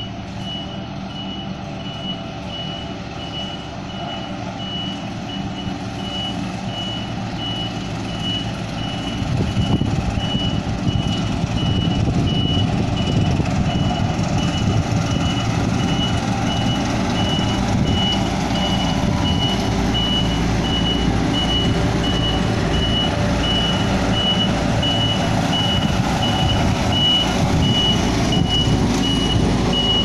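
Diesel engines of Sakai pneumatic tire rollers running, louder from about nine seconds in as a roller comes close, with a back-up alarm beeping evenly at one high pitch throughout.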